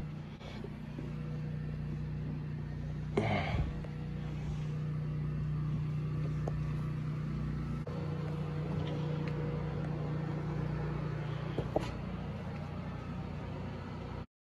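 A steady low mechanical hum, with a short knock about three seconds in and another near the end. The sound cuts off abruptly just before the end.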